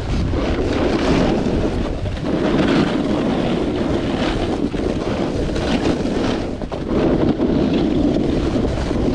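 Wind buffeting the microphone of a camera carried down a ski run at speed, with a snowboard scraping and hissing over chopped-up snow. The hiss rises and falls every second or so.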